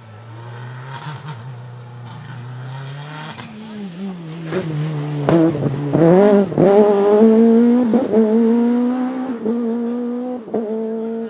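Rally car engine accelerating hard through the gears, the pitch climbing and dropping back at each shift, with sharp cracks at the gear changes. It grows loudest about halfway through, then holds a slowly rising note.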